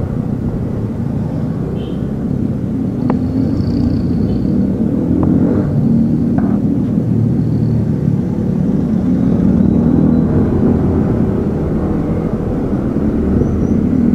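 Motorcycle engine running steadily while under way, with a low wind rumble on the microphone.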